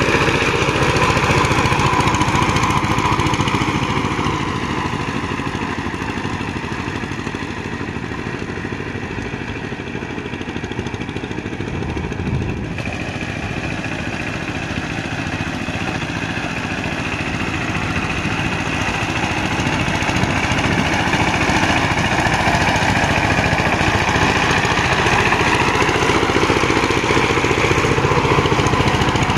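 Two-wheel power tiller's single-cylinder diesel engine running steadily under load as its cage wheels churn through deep paddy mud. The engine sound fades somewhat in the middle and grows louder again near the end.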